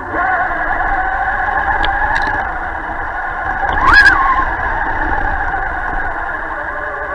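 Traxxas Stampede 4x4 RC truck's electric motor and drivetrain whining under throttle, heard through its onboard camera. The pitch climbs sharply to a peak about four seconds in and drops back, with a brief knock at the peak.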